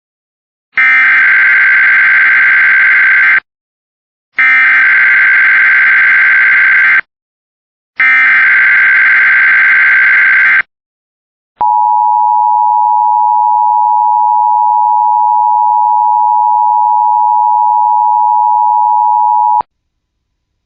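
Emergency Alert System header: three loud bursts of warbling SAME data tones, each about two and a half seconds long, followed by the steady single-pitch NOAA Weather Radio 1050 Hz alert tone held for about eight seconds, which signals that a weather warning or watch message is about to be read.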